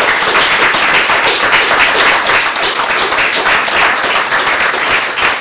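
Audience applauding: many people clapping, loud and even throughout.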